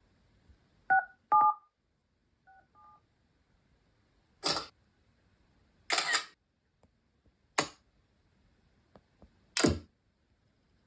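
Phone keypad dialing tones: two quick beeps, each a different pair of tones, then the same two beeps again more faintly. After that come four short, loud rustling knocks a second or two apart.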